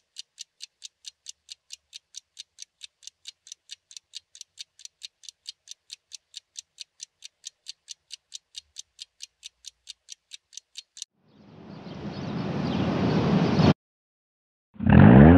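Steady clock-like ticking, about four ticks a second, for about eleven seconds. Then a rising whoosh swells and cuts off abruptly, and after a brief gap a loud, deep hit with a falling pitch begins near the end.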